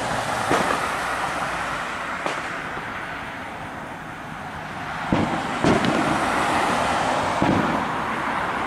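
Steady outdoor road-traffic noise, an even hum and hiss of passing cars, with a few dull thumps in the second half.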